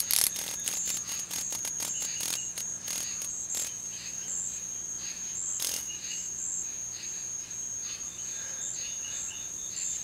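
Night insects trilling and chirping: a steady high-pitched trill with short chirps around it. A scatter of sharp clicks runs through the first few seconds, with one more about halfway through.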